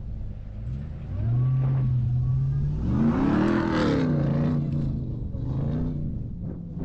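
Ram pickup truck's engine revving as it drives up a sand slope. The note rises about a second in, climbs to a peak around three seconds and falls back, then fades as the truck pulls away.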